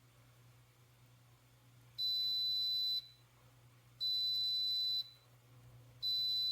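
Single-serve coffee machine's electronic beeper sounding three steady, high-pitched beeps of about a second each, two seconds apart, the first about two seconds in, over a faint steady low hum.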